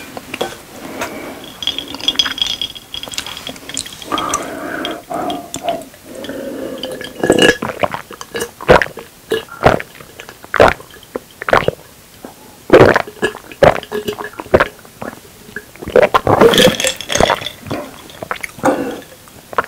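Close-miked eating-show sounds: light clinks of glass and dishes with a faint ring, then a long run of loud swallowing gulps while drinking from a glass mason-jar mug.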